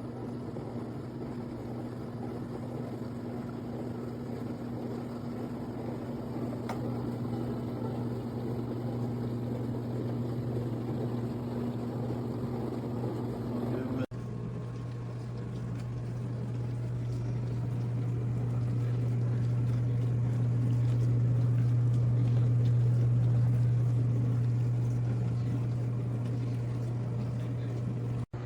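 COMFEE countertop portable mini dishwasher running its wash cycle: a steady low motor hum from the pump with water spraying and sloshing inside. The sound breaks off for an instant about halfway, then carries on, growing somewhat louder later.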